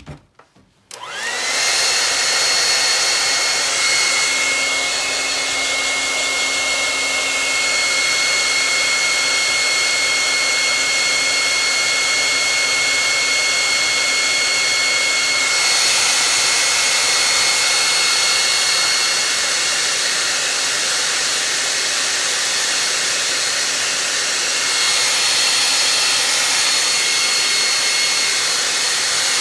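Handheld hair dryer switched on about a second in and then blowing steadily, a loud rush of air with a thin high whine over it.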